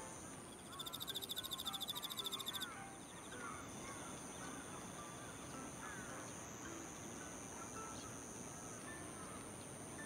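Insects singing in the grass: two steady high-pitched trills, joined about a second in by a louder, rapid pulsing buzz at roughly ten pulses a second that stops after about two seconds.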